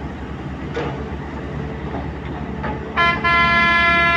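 Heavy diesel engine idling steadily, with a low rhythmic pulse. About three seconds in, a loud vehicle horn sounds: a short toot, then a longer blast of about a second.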